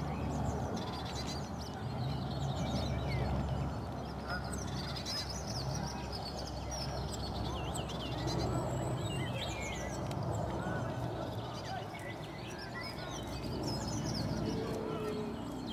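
Eurasian coot chicks a day old peeping from the nest: many short, thin, high calls that bend up and down in quick succession, over a steady low rumble.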